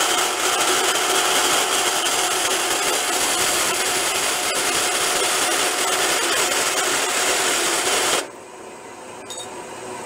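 Vertical band saw cutting a small steel bracket: a steady, high-pitched hiss of the blade in the metal. About eight seconds in it stops suddenly and drops to a much quieter sound with a few faint ticks.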